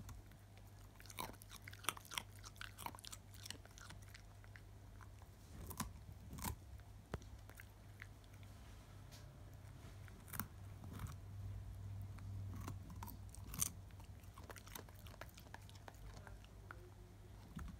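A dog crunching and chewing a raw carrot: irregular crisp crunches that come in clusters, with short pauses between bites.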